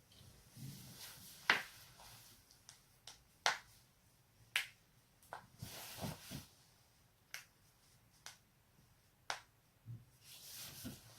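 A person's joints cracking: a series of sharp, separate pops, about eight spread over ten seconds, with soft rustling noise between them.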